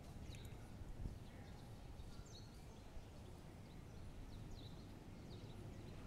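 Small birds giving short, high chirps every second or so, several sliding down in pitch, over a faint, steady low rumble of outdoor background noise.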